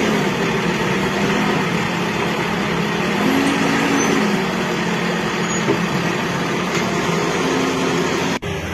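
A heavy vehicle's engine running, its pitch rising briefly about three seconds in and dropping back a second later, over a constant loud rushing noise.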